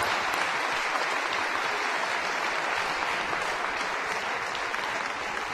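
Audience applauding: steady, dense clapping from a crowd of spectators.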